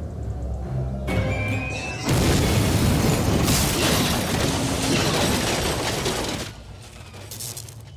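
Film sound effects of a spaceship crashing: a rising whine, then about two seconds in a loud crash and rumble with shattering debris that lasts several seconds before dying away, over a dramatic music score.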